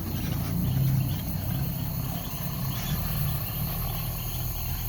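Night insects, crickets, chirping in fast repeated pulses over a steady low rumble.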